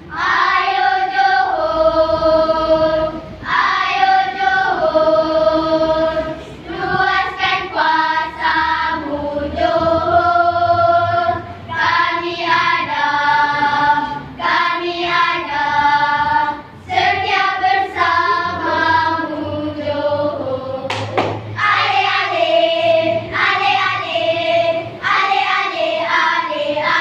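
A children's choir singing and chanting together in unison, in phrases of held notes separated by short breaks.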